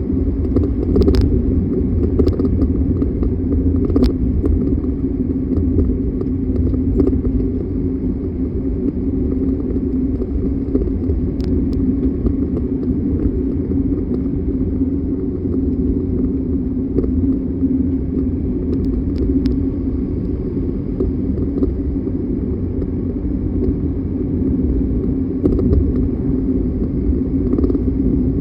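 2025 Mercedes-Benz Sprinter 419 4x4 van running with a steady low rumble, broken by a handful of short, sharp rattles from the driver-side front suspension.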